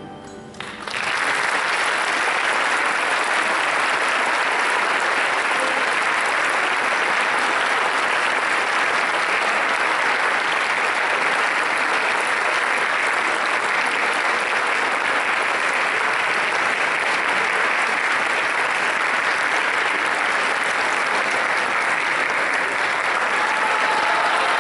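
Audience applause, starting about a second in and holding steady.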